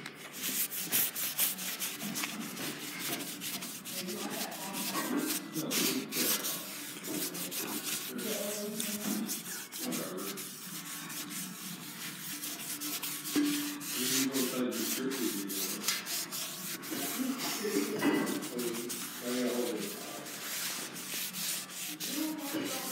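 A shop towel scrubbing dirt off a green-painted metal fender: continuous rough rubbing made of quick, irregular strokes.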